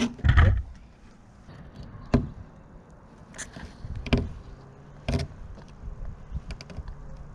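Razor blade scraper scraping old rubbery caulk off the joint of a fiberglass sailboat hull, in about four short, separate strokes with small knocks of the blade.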